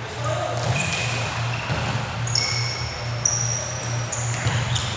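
Basketball shoes squeaking on the court, several short high squeaks one after another, over a steady low hum.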